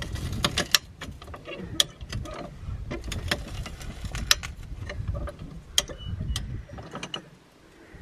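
Hi-Lift jack clacking as its handle is pumped, raising a sand-bogged Land Rover Defender: a string of sharp, irregularly spaced metallic clicks over a low rumble.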